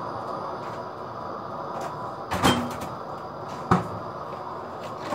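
A refrigerator door shut with a knock about two and a half seconds in, followed a second later by a short sharp click, over a steady kitchen hum.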